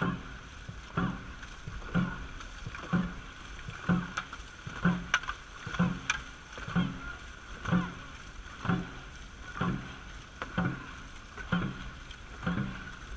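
Dragon boat crew's paddles digging into the water in time, a regular stroke about once a second, with water rushing along the hull.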